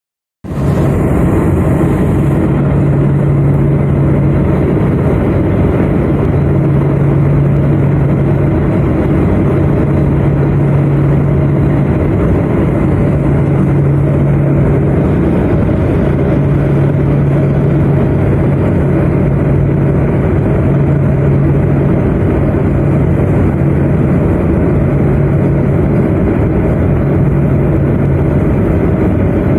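Let L-410 Turbolet's twin turboprop engines running steadily in a loud, even drone. A low hum from the propellers swells and fades every couple of seconds.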